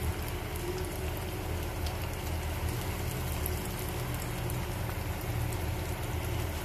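Hot oil sizzling and crackling steadily as breaded potato-cheese balls deep-fry in a wok, with fine pops throughout and a low hum underneath.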